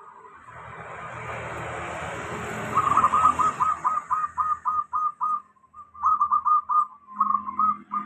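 Perkutut (zebra dove) cooing: quick runs of short, clipped notes, about five a second, starting about three seconds in, pausing, then resuming. Underneath, in the first half, the rush of a vehicle passing swells and fades.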